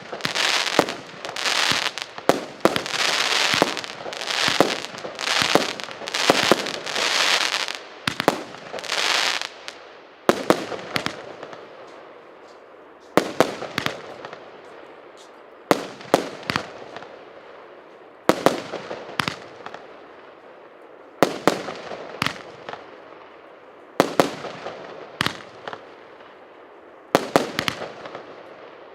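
A multi-shot fireworks battery (cake) firing. For about the first ten seconds it goes off in a rapid, near-continuous volley of shots and bursts. After that come single shots about every two and a half to three seconds, each a cluster of sharp bangs that fades out.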